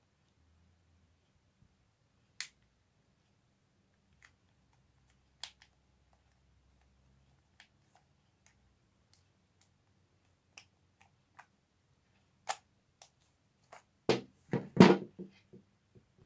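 Scattered plastic and metal clicks from handling the parts of an Umarex HDR 50 revolver, then a louder run of clicks and knocks near the end as a part comes off the frame.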